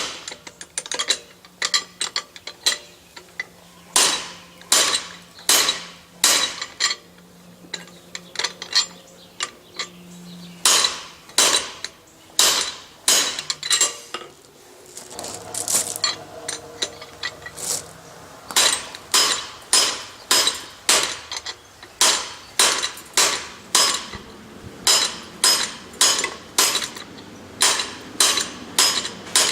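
Hammer blows on a blacksmith's guillotine tool with butcher dies, cutting the shoulders of a tenon in a hot steel bar. The blows ring and come about one to two a second, pause briefly about halfway, then come faster.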